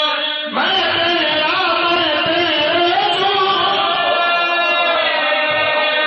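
Men's voices chanting a devotional Punjabi verse in long held, wavering notes, with a short break and a fresh entry about half a second in.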